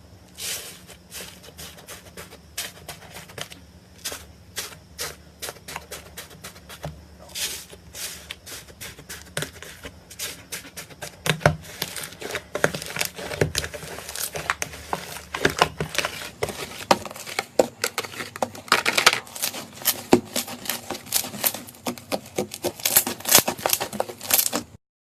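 Crunchy slime being squeezed and worked by hand, giving dense, irregular crackling clicks and pops. The crackling grows louder and busier about halfway through, then cuts off suddenly near the end.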